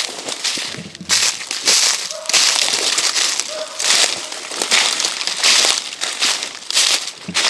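Footsteps crunching through dry leaves and brush at a steady walking pace, a little more than one crunch a second, as someone pushes through thick undergrowth.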